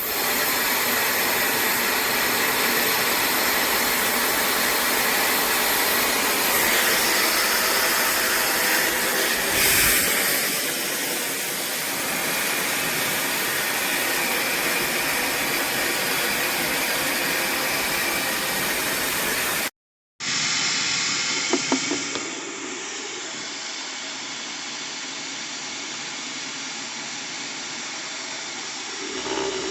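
AINA brushless (BLDC) hair dryer blowing air with a steady whoosh. About two-thirds of the way through it breaks off briefly, then carries on quieter and duller, with a few light clicks just after the break.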